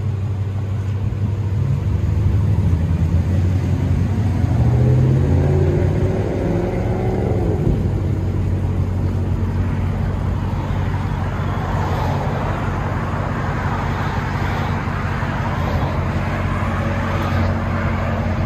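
A car engine running steadily. Its pitch climbs for a few seconds about a third of the way in, then drops away sharply. Steady road-traffic noise follows.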